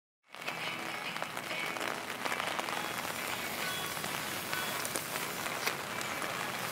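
Backpacking gas canister stove burning with a steady hiss under a titanium mug, with scattered faint ticks; it starts abruptly a moment in.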